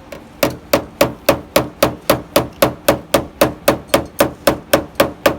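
A hammer tapping steadily on a car's sheet-metal body panel, about four even strikes a second, each with a short metallic ring, to work a dent out of the panel.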